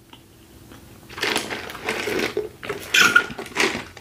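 Wet mouth sounds of drinking water: water slurped through a straw and swished around the mouth to work loose food caught in braces, in three or four noisy bursts starting about a second in.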